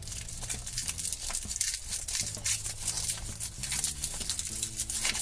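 Thin foil wrapper crinkling and rustling as it is peeled off a Chupa Chups chocolate ball by hand, a continuous run of quick crackles.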